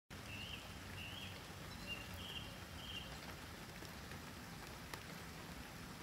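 Nightingale singing a string of five short whistled notes in the first three seconds, over a steady hiss of rain with a couple of faint ticks.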